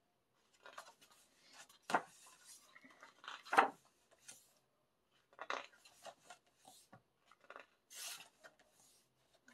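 Pages of a photo book being turned and smoothed by hand: paper sliding and rustling, with two sharper snaps of a page about two and three and a half seconds in.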